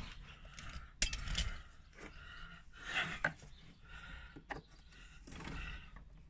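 Scattered clicks, knocks and scrapes of a screwdriver being handled and worked on a mower's rusted cover screws, with a sharp knock about a second in.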